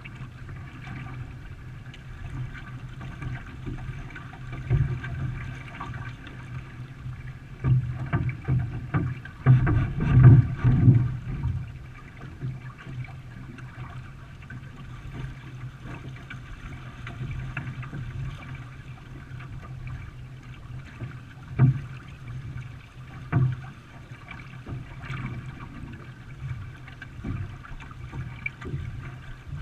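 Canoe being paddled in a race: water splashing and sloshing around the hull with irregular knocks and thumps, the loudest run of them about eight to eleven seconds in.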